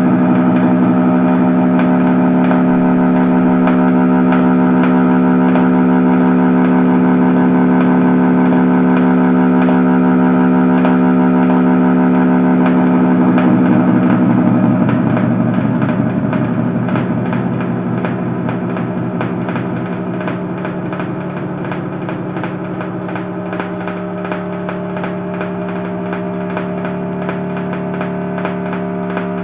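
Sustained electronic synthesizer drone: a loud held chord that wavers and shifts about halfway through, then carries on a little quieter.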